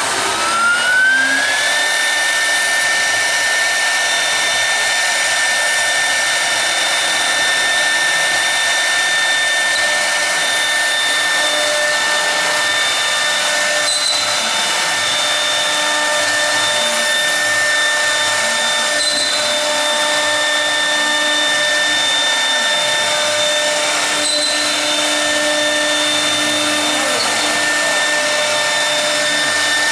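CNC router spindle spinning up, its whine rising in pitch over the first two seconds. It then runs at a steady high whine over a dense rushing noise.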